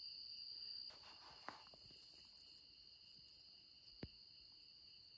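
Faint, steady high-pitched trilling of night insects, with two soft taps, one about a second and a half in and one near four seconds.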